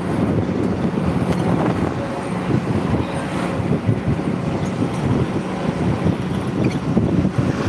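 Wind rumbling on the microphone, with a faint steady low hum underneath.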